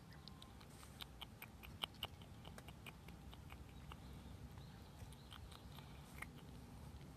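Faint scattered small clicks of stray kittens nibbling and chewing, the densest run about one to two and a half seconds in.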